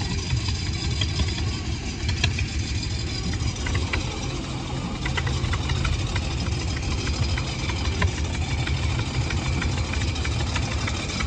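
The engine of a trailer-mounted, engine-driven welder running steadily at idle, with a few faint ticks over it.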